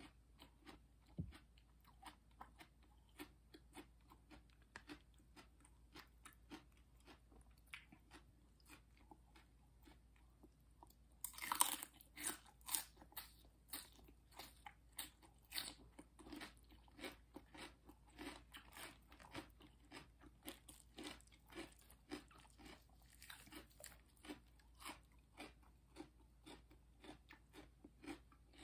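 Close-miked eating: faint mouth sounds, then a loud crunchy bite about eleven seconds in, followed by steady chewing of crunchy food with crunches about twice a second.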